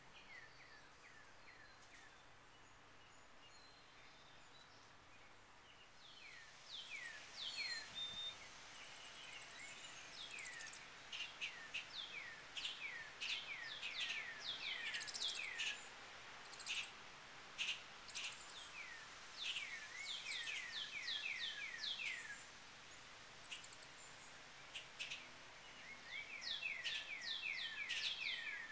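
Chickadees calling at a birdhouse: rapid runs of short, high chirps, each falling in pitch. A few faint chirps come near the start, and dense bursts begin about six seconds in and go on, with pauses, to the end.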